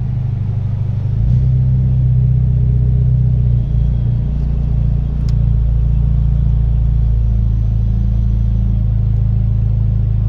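2011 Lancer Evolution's 2.0 L 4B11T turbocharged four-cylinder running steadily through its aftermarket ETS exhaust, a low, even rumble at idle, with one faint click about five seconds in.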